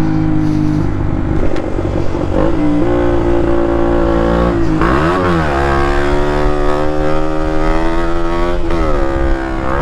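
KTM Duke 125's single-cylinder engine running loud through an exhaust with the dB killer removed, as the bike is ridden. The engine note holds fairly steady, dips briefly and climbs back about five seconds in, and again near the end.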